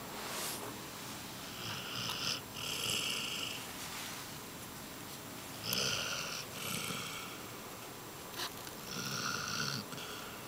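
Basset Hound snoring in her sleep, three drawn-out snores a few seconds apart, with quieter breathing between them.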